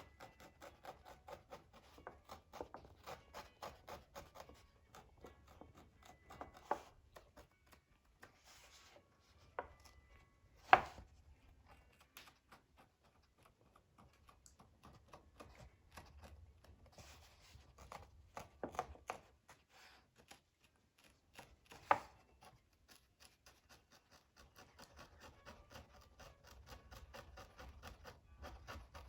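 Small-scale handwork on scroll parchment: quick light tapping and rubbing strokes in bursts, with a few sharper knocks on the work surface, the loudest about eleven seconds in.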